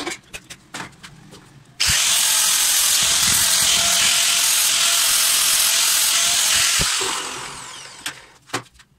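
Ingco angle grinder grinding down a weld bead on a steel bench vise jaw. It cuts in abruptly about two seconds in, runs steadily for about five seconds, then winds down near the end. A few light taps come before it.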